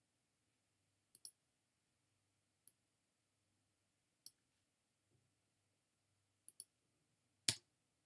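Computer mouse clicks in near silence: a double click about a second in, single clicks near three and four seconds in, another double click about six and a half seconds in, and a louder click near the end.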